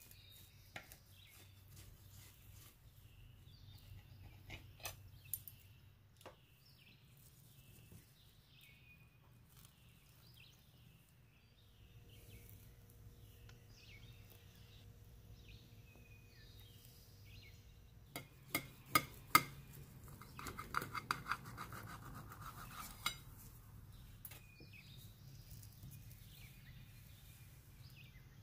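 Pizza cutter wheel cutting a soufflé omelette on a ceramic plate: quiet scattered clicks and taps of metal on the plate, a cluster of sharper clicks about two-thirds through, then a few seconds of scraping.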